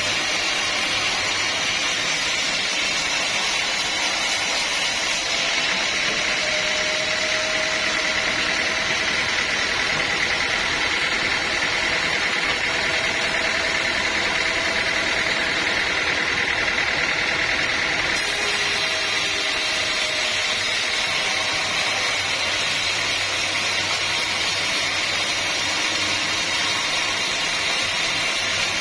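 Sawmill machinery running steadily with a continuous mechanical drone, its tone shifting abruptly about five seconds in and again about eighteen seconds in.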